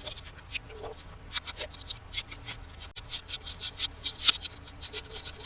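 Toy packaging being handled and unwrapped: a dense, irregular run of short, crisp crinkles and clicks.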